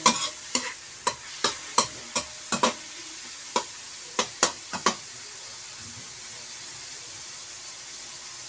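Meat sizzling in a frying pan as it browns, with a utensil stirring and knocking against the pan a dozen or so times in the first five seconds, then only the steady sizzle.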